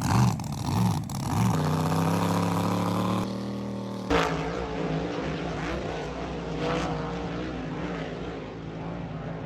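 Motor vehicle engine, its pitch swinging up and down in the first second or so and then holding steady; about four seconds in it drops to a quieter, even running sound.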